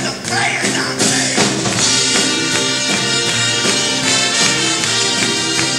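A mixed band of trumpets and other brass horns jamming a blues tune together over a steady beat. From about two seconds in, the horns play repeated held chords.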